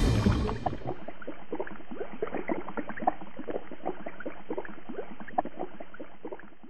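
Underwater bubbling sound effect: many small bubbles gurgling and popping at irregular intervals, muffled, fading out near the end.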